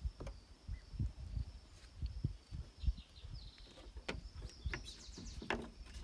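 Outdoor background with a few short bird-like chirps about halfway through, over scattered light clicks and knocks and a low rumble.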